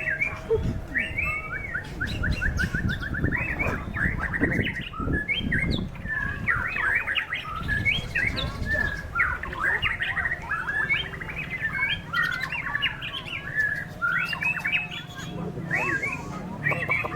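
White-rumped shama (murai batu) singing a long, varied song of quick whistled phrases, with a fast trill of repeated notes about three seconds in. Wind rumbles on the microphone underneath.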